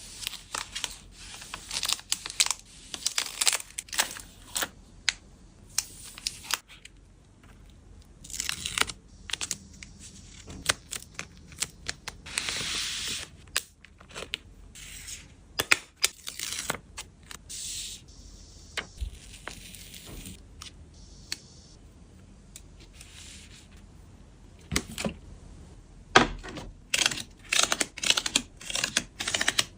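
Photocard packing sounds: plastic sleeves and wrapping crinkling, with stretches of tearing and many light taps and clicks.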